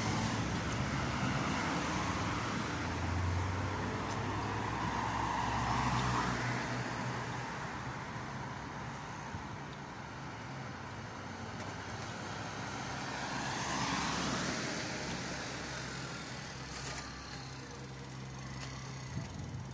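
Road traffic at a street: vehicles pass by over a steady low engine hum. The passes swell up and fade, the loudest about six seconds in and another near fourteen seconds.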